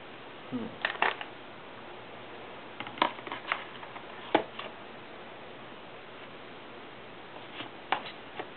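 Scattered clicks and light knocks as a Western Digital SATA laptop hard drive is handled and pushed into the drive bay of a black MacBook's plastic case, over a steady hiss.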